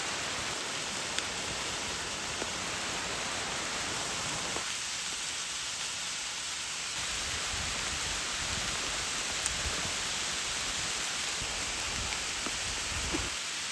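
Steady rain falling, an even hiss with a few light ticks of drops.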